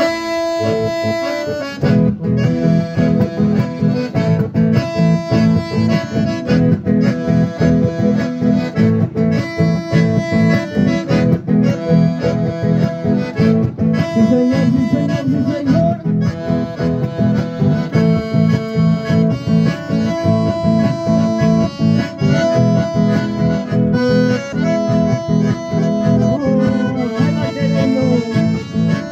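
Two button accordions and an acoustic guitar playing a folk tune together, the accordions' reedy chords sustained over a steady strummed beat.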